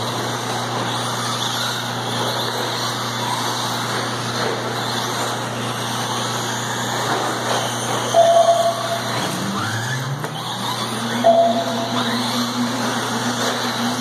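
Radio-controlled cars racing on a dirt track: short motor whines come and go as the cars pass, with one whine rising in pitch about two-thirds of the way in, over a steady low hum.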